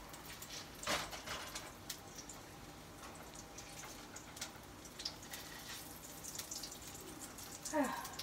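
Meatballs browning in olive oil in a frying pan, the oil crackling and spitting in irregular pops. There is a sharp knock about a second in and a short falling squeak near the end.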